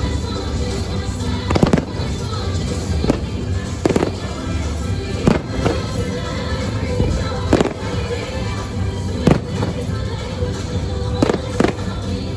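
Fireworks shells bursting in sharp bangs, about ten of them at irregular intervals of a second or two, over a fireworks show's music soundtrack.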